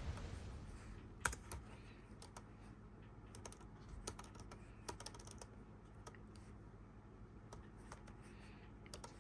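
Faint, irregular clicks of a Dell laptop's keyboard keys: scattered single presses rather than steady typing, as commands are copied and pasted. The sharpest click comes about a second in.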